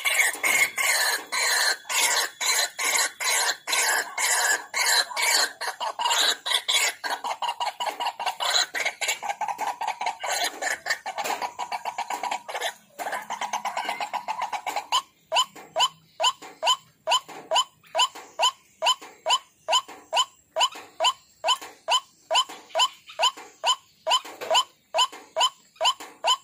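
White-breasted waterhen calling: harsh notes that for about the first fifteen seconds come fast and overlapping in a dense chatter, then settle into a steady, evenly spaced series of a little over two notes a second.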